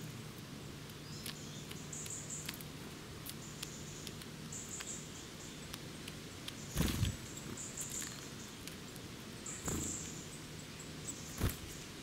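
Small songbirds' wings fluttering as they land and take off close by, with three loud flurries about seven, ten and eleven and a half seconds in. Short, high-pitched chirps from other birds and small ticks sound between them.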